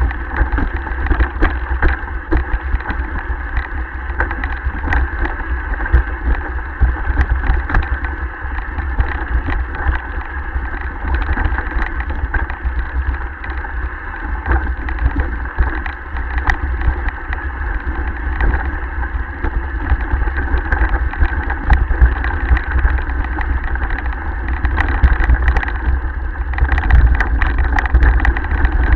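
Mountain bike rattling and clattering over a rough, rocky downhill trail, with a dense run of knocks and clicks from the bike and camera mount. Steady wind rumble on the microphone of a camera riding along underneath.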